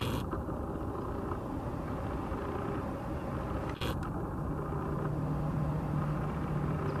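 Airbus A321-211's CFM56 turbofan engines running at low power as the airliner taxis after landing: a steady low rumble, with a low hum coming in about halfway and a brief tick just before.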